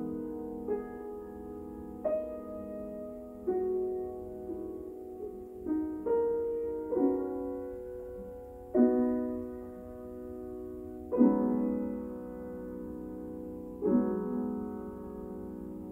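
Grand piano played solo: a slow piece of full chords struck every one to two seconds, each left ringing and fading before the next.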